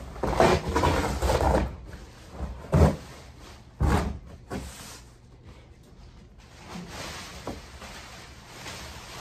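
A boxed safe and its packaging being handled and unpacked: rustling with two heavy thumps about three and four seconds in, then lighter knocks and handling.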